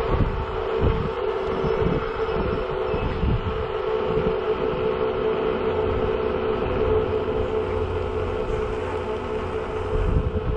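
Navee N65 electric scooter's 500 W motor whining at a steady pitch while riding at constant speed, over an uneven low rumble.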